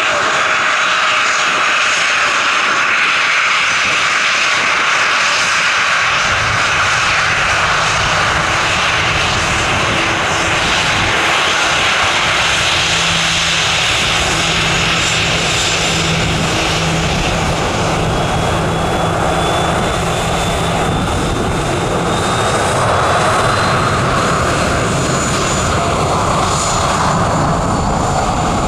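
ATR turboprop airliner taking off: its two turboprop engines and propellers running at takeoff power, a loud steady noise, with a deeper rumble coming in about six seconds in.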